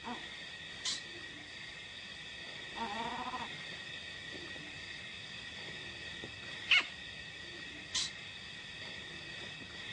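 Steady chirring of night insects, with a short snarl from a leopard about three seconds in. A few short, sharp clicks stand out, the loudest near seven seconds.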